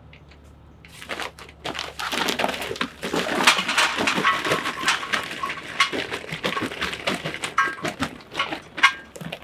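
B&B charcoal briquettes being poured from their bag into a steel firebox basket, clattering against the metal and against each other. The clatter starts about a second in and keeps up as a dense run of knocks.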